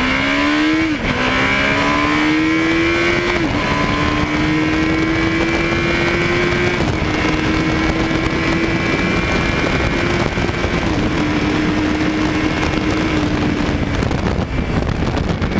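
Motorcycle engine accelerating hard through the gears, its pitch climbing and dipping briefly at each upshift, about four times, with wind rushing.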